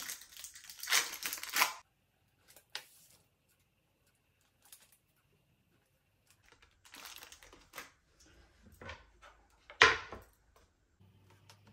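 Plastic film on processed cheese slices crinkling as the slices are handled and cut with a knife on a bamboo cutting board, with a few light knife ticks on the wood. A short sharp knock near the end, the loudest sound, as the knife meets the wooden tray while cutting sausages.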